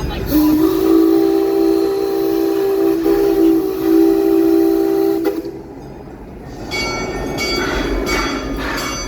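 An amusement park train's whistle blows one long chord, held for about five seconds. After a short lull the train's running noise starts up.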